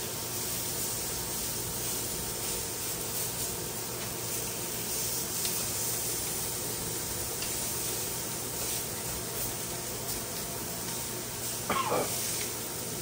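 Jerk chicken pieces sizzling on a stovetop grill pan, a steady hiss, with a few light clicks as tongs turn the pieces. A short squeak near the end.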